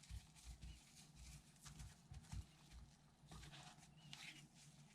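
Near silence with a few faint, soft knocks and light clicks of hands working at the faucet.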